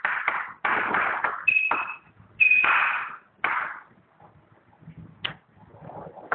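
Chalk writing on a chalkboard: a run of short scratchy strokes, with the chalk squeaking high twice in the first three seconds. The writing turns fainter after about four seconds, with one sharp tap.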